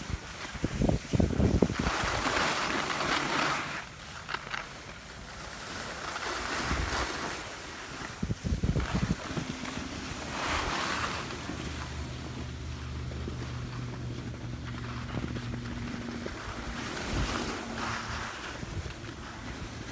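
Wind buffeting a phone microphone on the move down a ski slope, with swelling swooshes of board or ski edges scraping over packed snow, three times. A low steady hum comes in about twelve seconds in.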